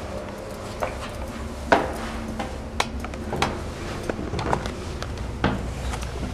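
Footsteps climbing stairs: irregular sharp taps and scuffs of shoes on the steps, over a steady low rumble.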